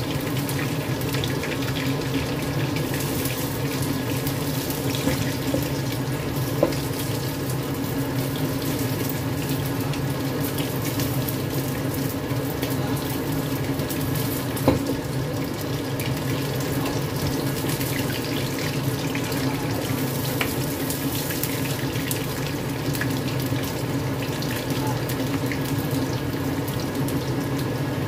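Cornstarch-coated chicken pieces shallow-frying in hot oil in a wok: a steady sizzle with scattered small pops. A few sharp clicks of metal tongs against the pan, the loudest about halfway through, over a faint steady hum.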